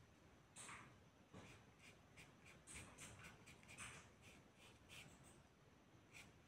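Faint, soft scratching of a paintbrush's bristles stroking fabric paint onto cloth, a string of short irregular strokes, a few each second.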